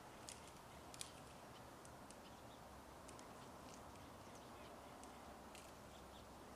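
Near silence: faint outdoor ambience with a low background rumble and a few faint, sharp ticks scattered through.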